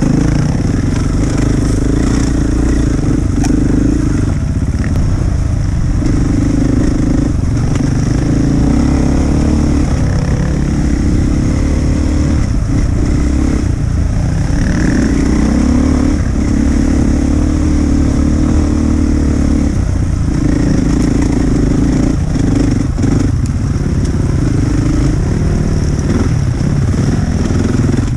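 Enduro motorcycle engine running on a trail ride, heard from the rider's own bike. The throttle opens and closes every few seconds, so the engine note repeatedly rises, drops and picks up again.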